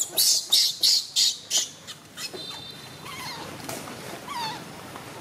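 Baby macaque screaming in distress as its mother pins it down: a run of harsh, high shrieks about three a second, then, after a short lull, a few quieter squealing cries that wobble in pitch.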